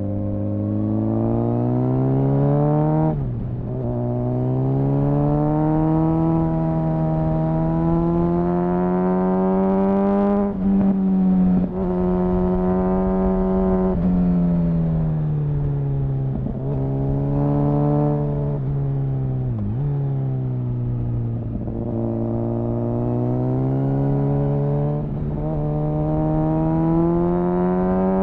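Engine and exhaust of a 2004 Honda CBR1000RR Fireblade inline-four, restricted to 35 kW, heard onboard under hard acceleration. The pitch climbs steadily in each gear, then drops sharply as the throttle is shut or a gear is changed, about seven times.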